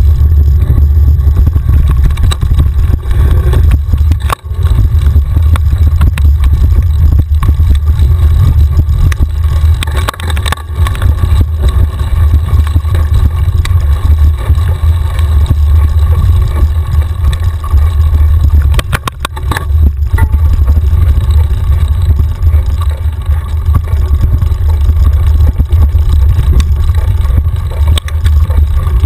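Wind buffeting a bike-mounted action camera's microphone as a mountain bike rides down rough dirt singletrack: a loud, steady low rumble. The bike rattles over bumps, with a cluster of sharp knocks about two thirds of the way in.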